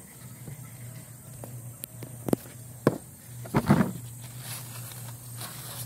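Handling and footstep noises: a few sharp clicks, then a short rustling scrape about three and a half seconds in, over a steady low hum.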